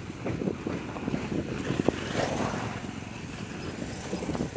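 A vehicle moving along a rough road: a steady low rumble with frequent small knocks and rattles.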